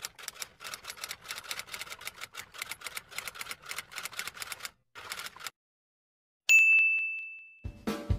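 Typewriter sound effect: a fast run of key clacks for about five seconds, a short pause, then a single bell ding that rings and fades. Drum-led music starts near the end.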